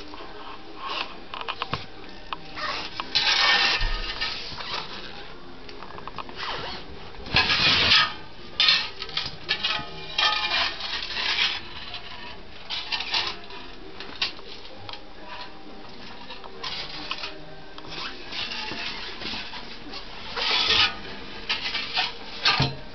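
Steel-framed hand truck being handled and tilted: scattered metallic clicks, clatters and rubbing in short irregular bursts.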